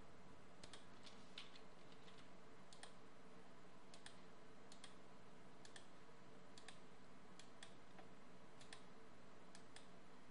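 Faint clicks of a computer mouse and keyboard at an irregular pace, about one or two a second, over a steady low hiss.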